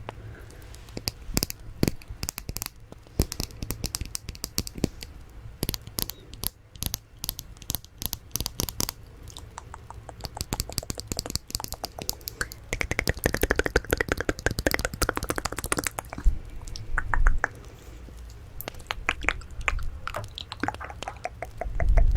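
ASMR mouth sounds close to the microphone: rapid, irregular wet clicks and lip smacks, with a longer soft sound around the middle whose pitch dips and rises again.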